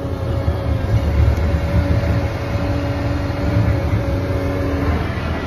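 Case CX145 excavator's diesel engine running steadily nearby: a low rumble with a steady hum over it.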